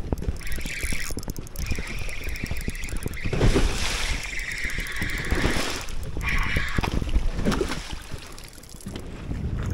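Spinning reel whirring in spells as a hooked bass is cranked toward the boat, over wind buffeting the microphone and choppy water slapping the hull.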